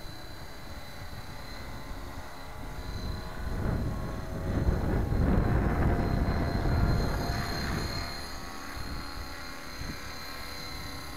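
Electric RC helicopter (Gaui X5) in flight, its motor and rotor running with a steady high whine. The sound swells louder for a few seconds in the middle, then eases back.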